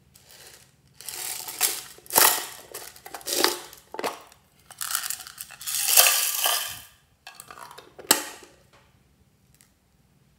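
Small beads rattling in a container as they are shaken out onto slime, in a run of bursts, with one sharp clatter near the end.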